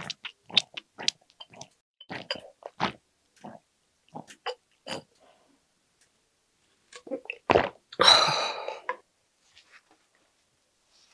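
Close-miked gulping and swallowing as strawberry milk is drunk from a small plastic bottle: a run of short wet clicks over the first few seconds. Near the end, a knock, then a louder, second-long rush of noise.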